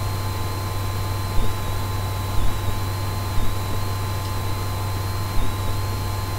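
Steady low electrical hum and hiss with a faint high whine, over which a few faint short clicks come about a second apart as a small Phillips screwdriver drives a screw into a laptop screen mount.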